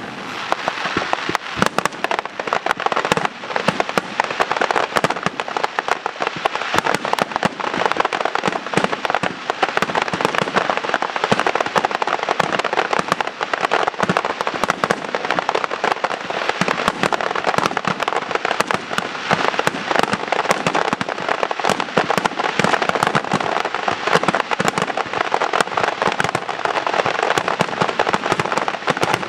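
Aerial fireworks going off in a dense barrage, a continuous run of rapid bangs and crackles that starts abruptly as it opens.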